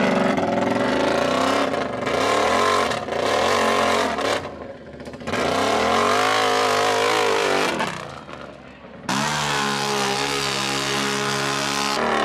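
Can-Am mud ATV's engine revving up and down in repeated bursts as it claws over a log obstacle, dropping away briefly twice, then held at a steady high pitch for the last few seconds.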